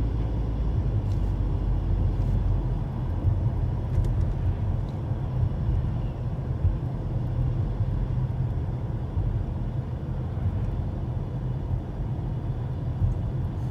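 Car driving along the road: a steady low rumble of engine and tyre noise.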